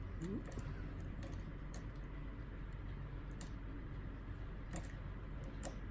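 Sparse light metallic clicks and taps of a tension wrench and overlifter working in a 5-lever mortise lock, a handful of separate clicks over a steady low hum.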